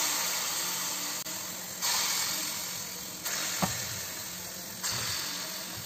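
Banana batter frying in hot refined oil in a kadai: a steady sizzle that flares up three times, about two, three and a half and five seconds in, as fresh spoonfuls of batter hit the oil, each flare dying down slowly.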